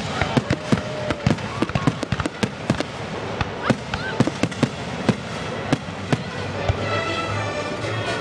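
Fireworks going off in quick succession, sharp bangs and crackles several times a second, with music playing underneath that comes through more clearly near the end.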